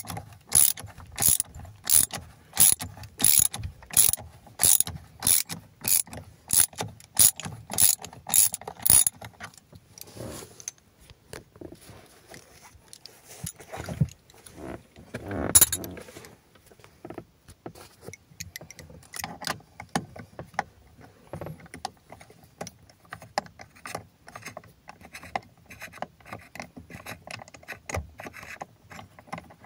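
Socket ratchet clicking steadily, about two clicks a second, as the loosened steering wheel bolt is backed out. After a pause with a knock, fainter and quicker ratchet clicks follow.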